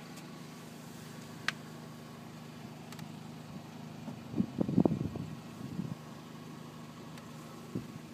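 Small car engine idling with a steady low hum. About four seconds in there is a short burst of knocking and rustling, with single clicks before and after it.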